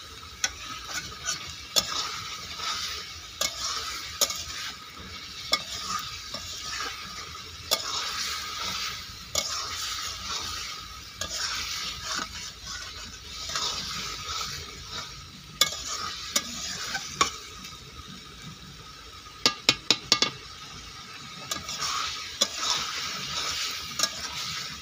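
Chicken masala sizzling as it is fried down (kosa) in a metal kadai, stirred with a spatula that scrapes and knocks against the pan every second or two. A quick run of four sharp knocks comes near the end.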